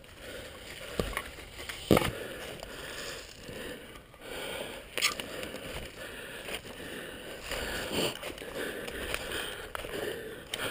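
Footsteps crunching and rustling through dry fallen leaves, with a few sharp clacks as airsoft magazines and gear are handled, loudest about two seconds in.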